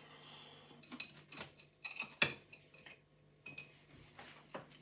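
Metal table knife clinking and scraping against a ceramic plate while cutting through a crumb-coated haggis bonbon: a run of short, sharp clinks, the loudest about two seconds in. Near the end the cutlery is set down with a few lighter clinks.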